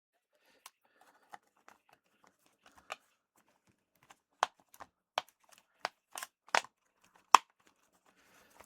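Sharp plastic clicks and light rustling from handling and fitting parts of a Corsair HS70 Pro headset's ear cup. The clicks come faster in the second half, ending in one loud snap near the end.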